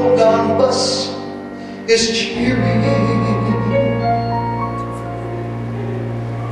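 Big band playing long held chords, with a sudden hit about two seconds in followed by a steady low note under the chord.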